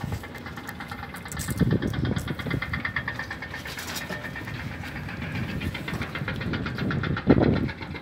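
An engine running steadily with a fast, even knocking rhythm. Louder low bumps come and go over it, the loudest about seven seconds in.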